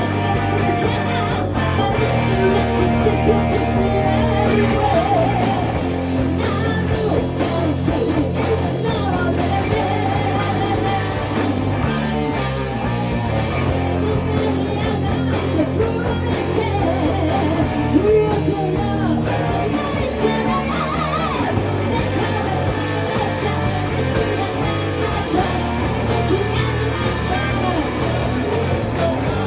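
Hard rock band playing live: distorted electric guitar and a full band under a sung lead vocal.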